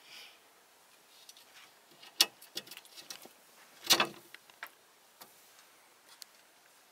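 A kitten's teeth and claws knocking and scraping on a weathered wooden post and glass pane: a few sharp clicks, with the loudest knock about four seconds in.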